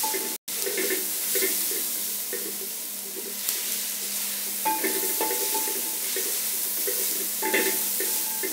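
A hand squishing and kneading thick flour batter in an enamel bowl, with water poured in from a steel tumbler partway through, over a steady hiss. The sound drops out briefly just under half a second in.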